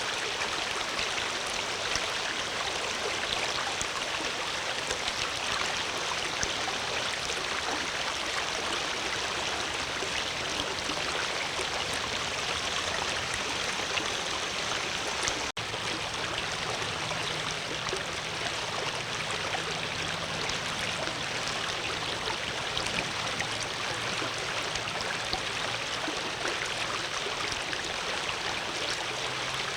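Flowing water running steadily, an even rushing and splashing, with a momentary break about halfway through.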